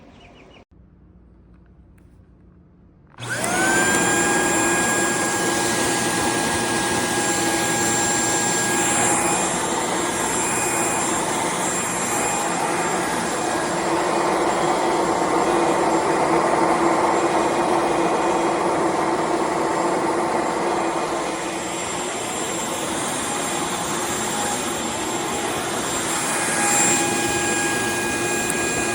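Shark PowerDetect corded stick vacuum switching on about three seconds in, its motor whining up to speed within a fraction of a second and then running steadily. The whine changes tone about nine seconds in and returns to its first tone near the end.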